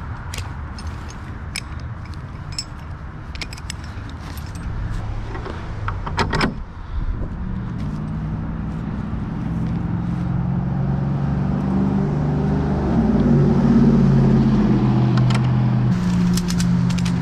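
Metal hooks and buckles of ratchet straps clinking as the straps are handled, with a quick run of ratchet clicks near the end. From about halfway a motor's steady hum comes in, grows to be the loudest sound, rises a little in pitch and then eases off.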